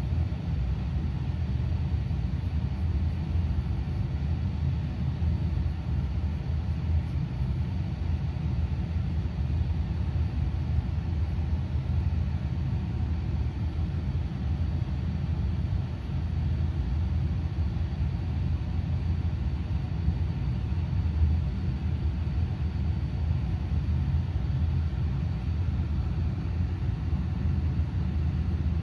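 Domestic cat purring steadily while being stroked on the head and chin: a continuous low rumble with no pauses.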